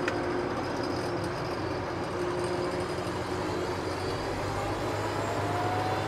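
John Deere 8335R tractor's diesel engine running steadily while the 24-row planter's fans start up: a steady hum, with a whine that slowly rises in pitch from about halfway in as the fans spin up.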